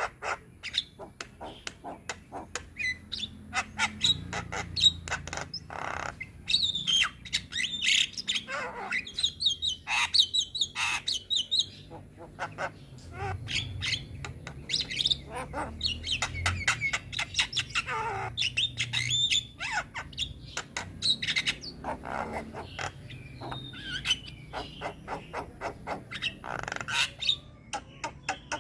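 Javan myna (jalak kebo) singing nonstop, a rapid, varied chatter of sharp clicks, short whistles and harsh squawks packed with mimicked phrases.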